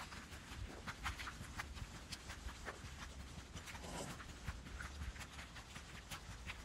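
Footsteps of a person walking on a wet tarmac path: irregular soft taps and scuffs, about two a second, over a low rumble.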